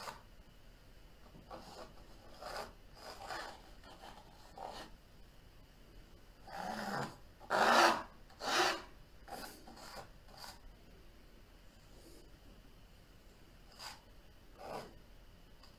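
Palette knife scraping and spreading oil paint on a canvas in a string of short strokes, the loudest three near the middle.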